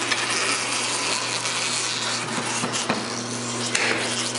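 Tyre changer turning a 24-inch wheel on its turntable with a steady low motor hum, while the mounting head drags the tyre's rubber bead over the rim lip in a continuous scraping rub. A few light clicks come about two to three seconds in.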